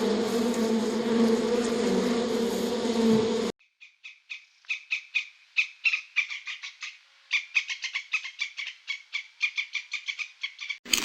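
A steady, insect-like buzz that cuts off suddenly after about three and a half seconds, followed by rapid runs of short, clicking chirps from a small animal, several a second.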